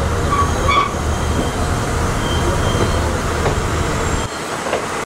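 Chepe passenger train running on the rails: a steady rumble and rattle, with a couple of short high squeals in the first second. The low rumble eases near the end.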